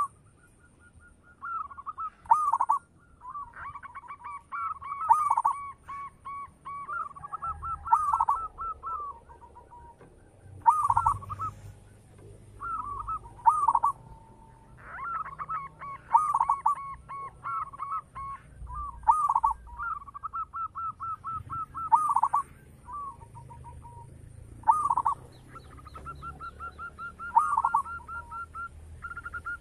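Zebra dove (Javanese perkutut) singing its cooing song: short phrases of loud low notes run into a quick rolling trill, repeated every two to three seconds. A faint high chirp repeats in the background.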